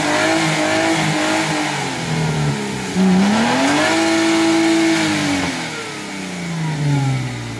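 Jeep Wrangler Unlimited's engine revving under load as it pulls through a deep mud hole, tyres churning in the mud. The revs dip about three seconds in, climb and hold high for over a second, then fall away near the end.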